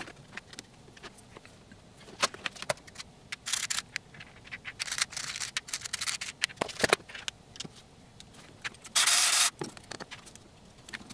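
Small clicks and clatter of 3D-printed plastic parts being handled, with screws rattled in a plastic organizer box. Near the end comes a louder scrape lasting about half a second.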